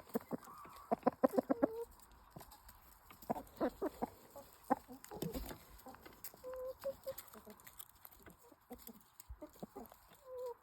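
Chickens clucking: a quick run of short clucks about a second in, another cluster a few seconds later, then scattered softer clucks.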